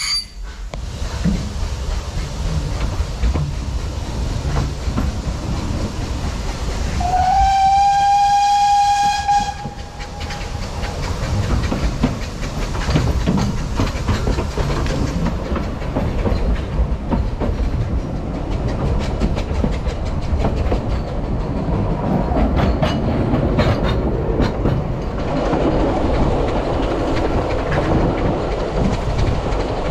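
Narrow-gauge steam train heard from an open-sided carriage: a steady running rumble of wheels on rail, with one long whistle blast of about two and a half seconds about seven seconds in. Later there is a clickety-clack of rail joints.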